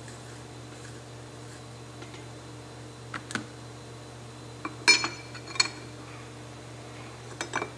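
Metal parts clinking as the shaft assembly of a mountain bike rear shock is threaded into its aluminium body and a metal tool is fitted over it. There are a few light knocks; the two loudest, about five seconds in, ring briefly. A steady low hum runs underneath.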